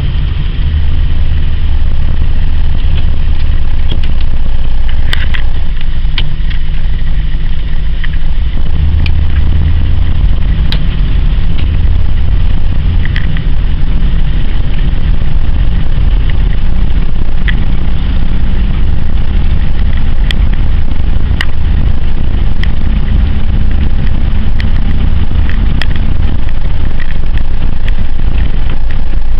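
Interior driving noise of a 1976 Ford LTD station wagon cruising at steady speed: a loud, steady low engine and road rumble, with a few light ticks now and then.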